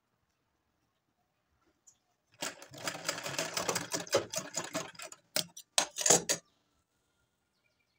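Sewing machine stitching: a fast, even rattle of needle strokes starts about two and a half seconds in and lasts about three seconds, then two short bursts of stitching follow around the sixth second.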